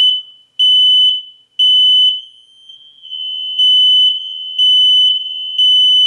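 Kidde hardwired smoke alarm sounding its loud, high-pitched temporal-three pattern: three half-second beeps, a pause, then three more. Fainter beeping from another interconnected alarm fills the gaps. This is the beep, beep, beep, pause sequence that shows the alarm has been reset after power was restored.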